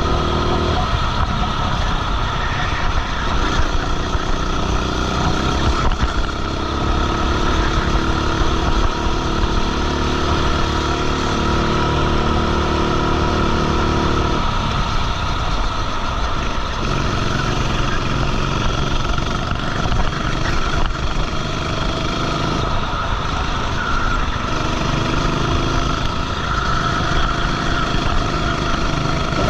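Racing kart engine heard onboard while lapping. It holds high revs for about ten seconds, falls off about halfway through as the kart slows, then builds again near the end.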